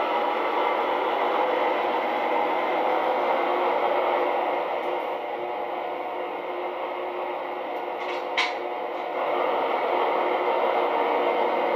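Digital sound decoder of a model V60 diesel shunting locomotive playing its diesel engine running sound through the model's small loudspeaker. The sound eases off a little and picks up again about nine seconds in, with one short sharp sound just before.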